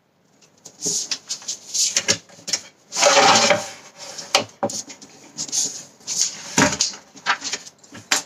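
Craft tools and card stock handled on a tabletop: irregular clicks and knocks as a steel ruler is put down and a plastic scoring board is set in place, with a longer sliding scrape about three seconds in and rustling of the sheet being laid on the board.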